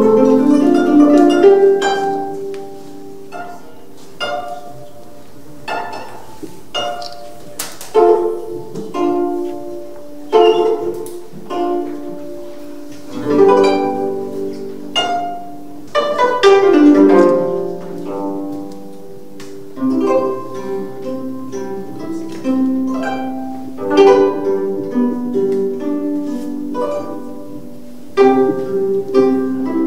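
Gayageum played solo: single plucked notes and quick runs that ring and fade, with louder clusters of strokes every few seconds.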